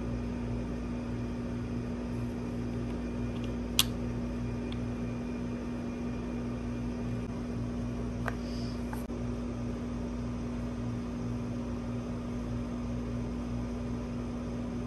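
Steady low electrical hum over room noise, with a sharp light click about four seconds in and two fainter clicks a little past the middle.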